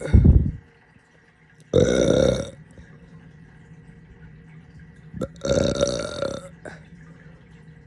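A person burping close to the microphone, three times: one burp trailing off right at the start, another about two seconds in, and a longer one at about five and a half seconds.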